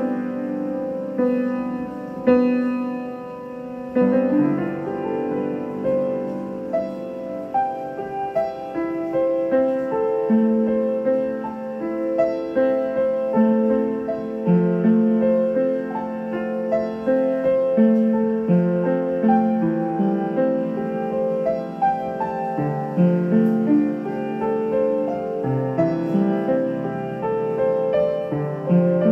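Piano music: a melody of held notes moving over lower accompanying notes.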